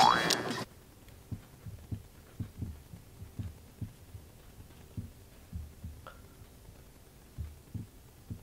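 A cartoon boing sound effect ends just under a second in. It is followed by soft, low thumps in a slow, uneven rhythm like a heartbeat sound effect, and one brief squeak about six seconds in.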